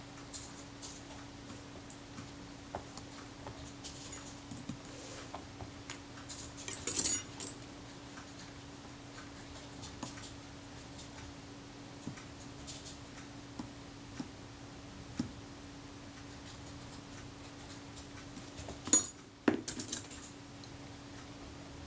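Small metal clicks and scrapes of fine tweezers working the meter coupling cord into the grooves of a Kodak Retina IIS's light-meter drum, with a brief cluster of louder clicks about seven seconds in and a sharper clatter near the end as the tweezers are set down. A faint steady hum runs underneath.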